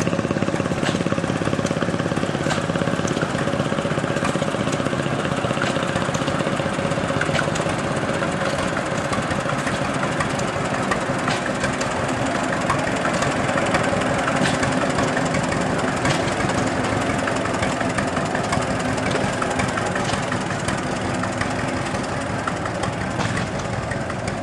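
Two-cylinder engine of a vintage John Deere tractor running steadily as the tractor drives slowly.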